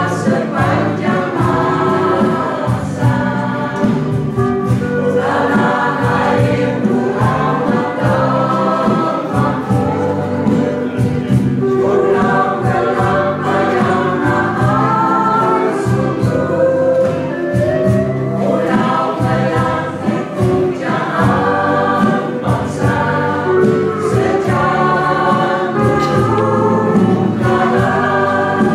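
Mixed Indo-Dutch choir singing together in phrases, backed by a small guitar band with steel guitar and bass.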